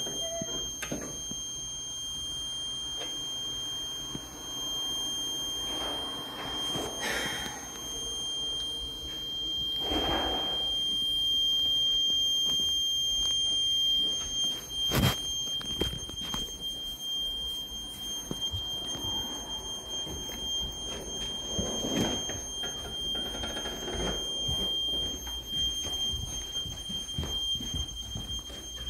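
Fire alarm sounding one steady, unbroken high-pitched tone, with occasional rustling and a sharp knock about halfway through.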